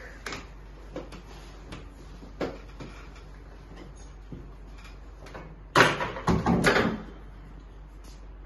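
A person turning over onto their back on a chiropractic treatment table: scattered light knocks and rustles, then a loud burst of thumps and rustling about six seconds in.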